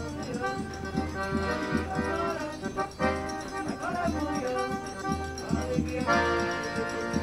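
Instrumental music with held melody notes over a steady, regular beat.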